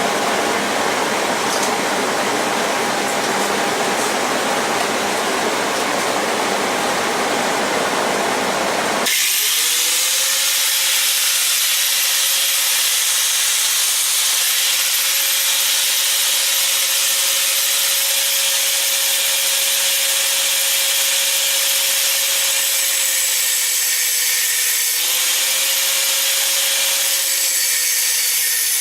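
Angle grinder with a thin cutoff wheel running and cutting into a steel knife frame lock. About nine seconds in the sound changes abruptly from a dense grinding noise to a steady high whine with hiss.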